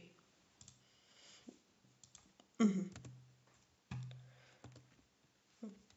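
A few separate computer mouse clicks, spaced irregularly, over a faint steady low hum.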